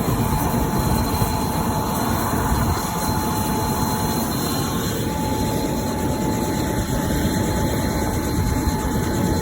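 Steady, loud rumble of a running vehicle or engine, with a faint constant whine over it.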